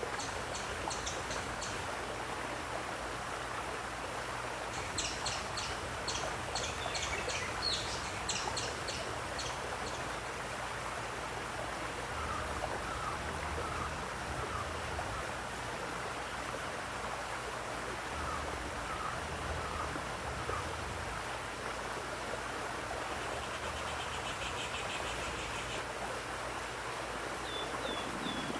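Steady running water with birds singing over it: a rapid series of chirps at the start and again about five to ten seconds in, softer chirps in the middle, and a buzzy trill near the end.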